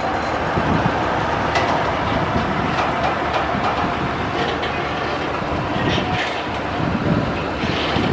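A heavy-haul truck pulling a multi-axle low-bed trailer loaded with a metro rail coach, its engine running as it moves slowly. Short metallic clinks and knocks come through, from the load's tie-down chains and the trailer.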